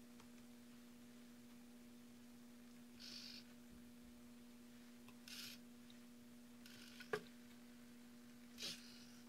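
Small hobby servos driving a home-built WALL-E robot's eyes and head, giving four short, faint whirs a couple of seconds apart, with a sharp click a little after seven seconds, over a steady faint hum.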